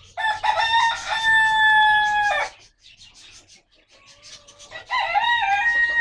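A rooster crowing twice: a long, held call of about two seconds, then a second crow starting near the end.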